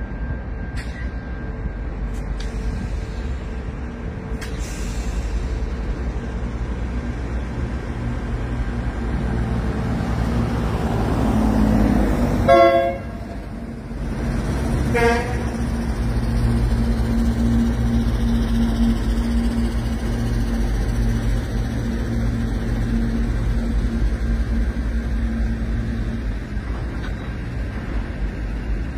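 Pacific National diesel freight locomotive passing with its engine running as a steady low rumble, which builds to a peak about halfway through. The horn sounds twice: a blast of about a second, then a short toot a couple of seconds later. The rumble of the train rolling by continues afterwards.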